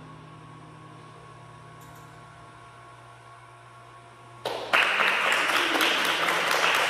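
A faint lingering tone dies away; then, about four and a half seconds in, the audience suddenly breaks into loud applause, which goes on to the end.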